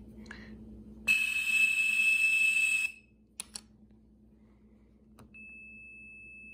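A Cap'n Crunch cereal-premium toy whistle blown once for about two seconds: a shrill, breathy whistle near 2600 Hz. Two clicks follow, then about five seconds in a quieter, pure steady 2600 Hz tone from a blue box's speaker starts at the same pitch, showing the whistle sounds the 2600 Hz trunk-seizing tone.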